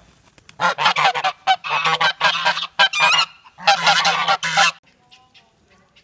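Domestic geese honking loudly in three harsh bouts, each about a second long, stopping about five seconds in.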